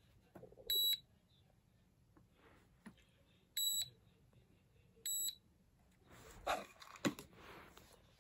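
Digital drip-coffee scale's touch buttons beeping three times as they are pressed, each a short high beep about a quarter second long: about a second in, near the middle, and a second and a half later. Then a plastic pill bottle is lifted off the scale's top, with rustling and a knock near the end.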